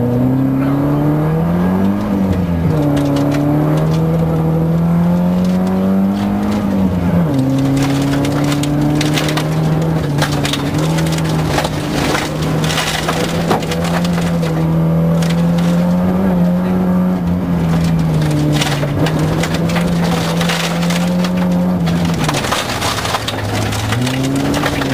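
Volvo 940 rally car's engine heard from inside the cabin, accelerating hard off the start: the revs climb and drop at each upshift, then are held high at speed on a gravel stage. Gravel clatters against the underside of the car, and the revs dip briefly near the end before picking up again.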